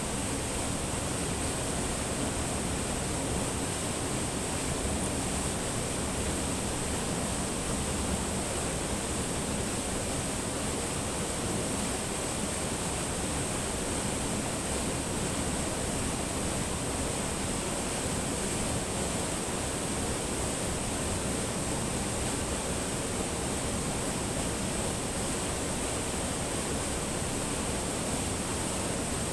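Spring water flowing steadily over rocks, a constant rushing with no breaks, and a steady high-pitched hiss above it.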